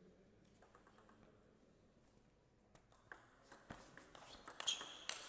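Table tennis rally: the ball clicks sharply off the bats and the table, a quick run of hits that starts about three seconds in and grows louder.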